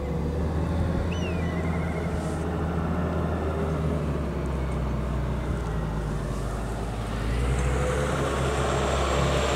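An engine running steadily with a low hum, growing louder about seven seconds in. A bird gives a short chirping call about a second in.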